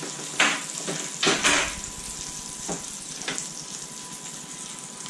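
Melted butter and oil sizzling on a hot grill tray fresh from under the grill, a steady hiss. A couple of loud knocks in the first two seconds and a few softer ones later.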